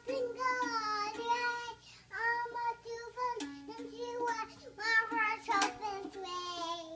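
A toddler singing a tune in a high voice, in held notes broken by short pauses, with a few sharp strums of a small plastic toy guitar.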